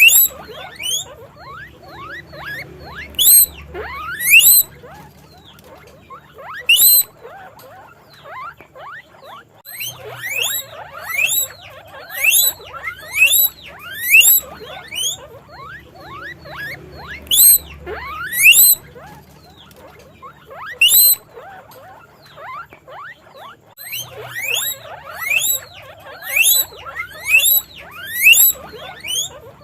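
Guinea pig wheeking: repeated loud, rising whistle-like squeaks in bouts, with a couple of short pauses between them.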